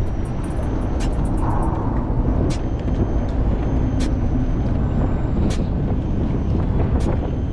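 Boat motor running steadily under a loud low rumble, with scattered faint sharp ticks.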